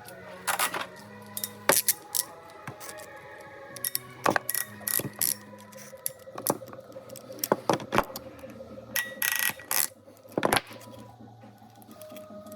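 Irregular metallic clicks and clanks of tools and fittings being handled during work on a car's A/C hose, with a short rasp a little over two-thirds of the way through. Background music plays underneath.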